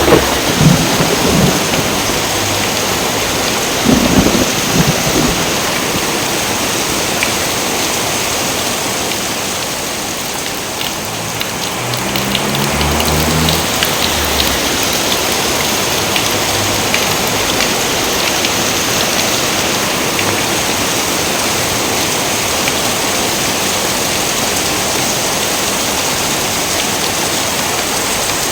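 Steady rain with rolling thunder. The thunder is loudest near the start and again about four seconds in, with a lower rumble around twelve to fourteen seconds.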